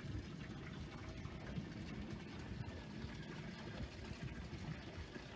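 Low, uneven rumbling background noise with no distinct events.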